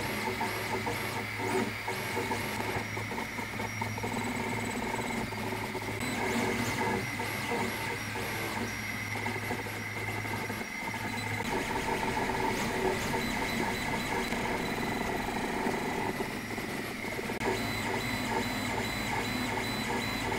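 Cocoon Create 3D printer running a print: its stepper motors whine in tones that shift every few seconds as the print head moves, over a steady fan hum.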